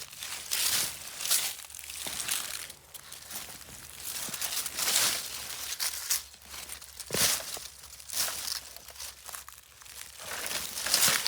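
Irregular rustling and crunching of sweet potato vines and garden soil as plants are pulled and tubers dug out by hand.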